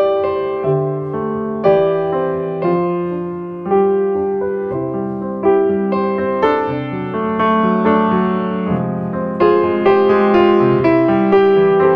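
Slow piano music: notes and chords struck about once a second, each left to ring and fade.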